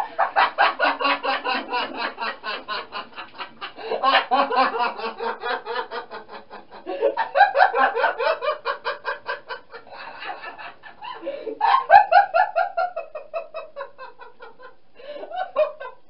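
A young man laughing hard and loud: bouts of rapid, pitched ha-ha pulses, about five a second, each bout sliding down in pitch, with short breaks for breath between about five bouts.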